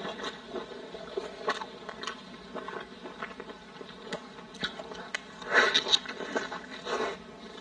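Close-miked eating sounds: chewing with small wet mouth clicks, the crackle of crisp lettuce leaves being wrapped around a piece of meat, and a louder crunchy bite into the lettuce wrap about five and a half seconds in.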